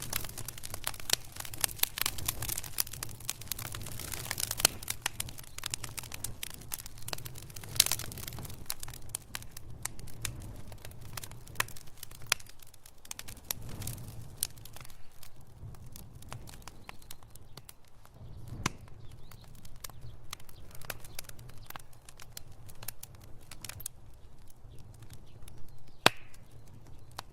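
Fireplace fire crackling: dense snaps and pops at first, thinning out after about ten seconds, with one sharp pop near the end, over a low steady rumble.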